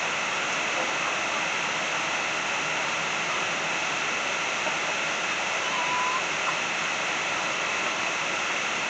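Steady rush of flowing water, with one short high call about six seconds in.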